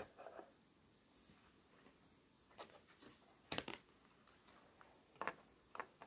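Near silence broken by a few brief rustles and taps of a tarot card and guidebook pages being handled, the loudest about three and a half seconds in.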